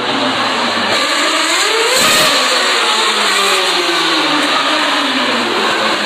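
Formula One cars with 2.4-litre V8 engines passing at racing speed. The engine note rises as a car approaches about two seconds in, then falls away over the next few seconds as it goes by, with several cars close together.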